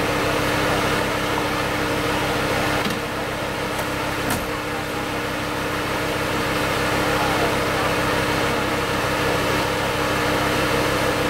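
Off-road 4x4's engine running steadily with a fast low pulsing, the vehicle held nose-up on a steep muddy slope. A single sharp click about four seconds in.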